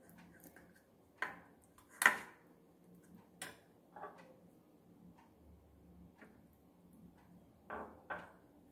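A steel spoon clicking and knocking against a plastic bowl while flour and water are stirred into a paste: a handful of separate light taps, the loudest about two seconds in.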